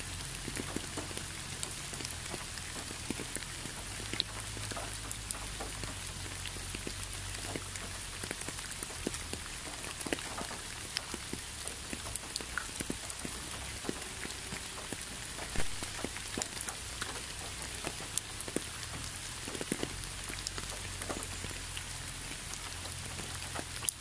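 Steady forest rain: an even hiss with many separate drops ticking close by, and a low rumble underneath.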